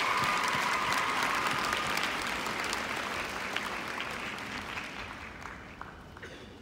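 Arena audience applauding, loud at first and dying down over the last few seconds.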